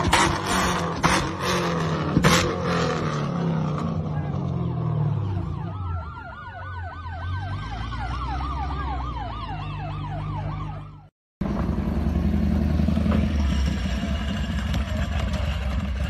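A car's exhaust backfires with several loud bangs as the engine revs drop, the tailpipes spitting flames. The engine then hums low under a warbling siren-like tone for about five seconds. After an abrupt cut, a motorcycle engine idles steadily.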